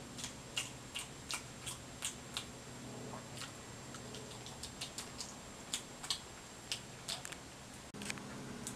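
Budgie nibbling a peeled banana: irregular sharp little clicks of its beak, about two or three a second.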